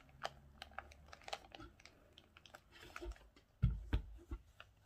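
Faint clicks and rustles of a new sneaker being handled over an open cardboard box, with a couple of dull thumps near the end as it bumps the box.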